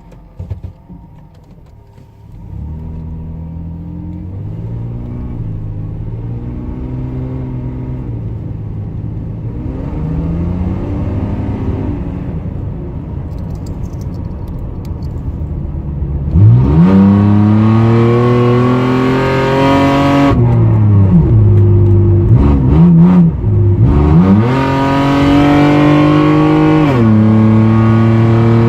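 Toyota Mark II JZX90's exhaust, with an electric cutout valve on a straight-through cat-delete pipe. At first the engine idles and revs moderately with a metallic tone, which the owner puts down to a leaking exhaust manifold and an old muffler with the valve closed. About halfway through the exhaust turns much louder, as it does when the cutout opens, with revs rising and falling in several blips before settling.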